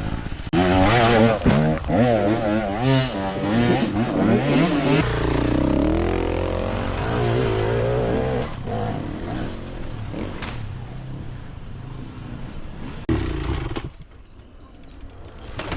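Enduro motorcycle engine revving up and down in quick swings, then running more steadily and fading away. The level drops suddenly about fourteen seconds in.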